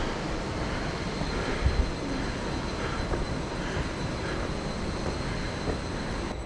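Fukiware Falls waterfall rushing: a steady roar of falling water, with a couple of low bumps about two seconds in.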